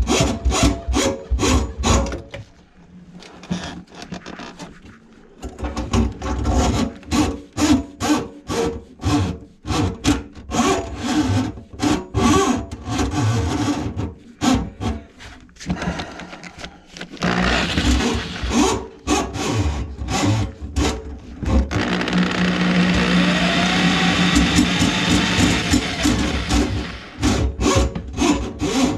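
Drum drain snake churning its cable into a kitchen sink drain line clogged with food grease, in rapid rhythmic pulses about four a second. About two-thirds of the way through it runs steadily for several seconds, then goes back to pulsing near the end.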